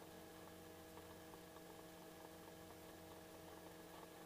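Near silence: only a faint steady hum with several held tones.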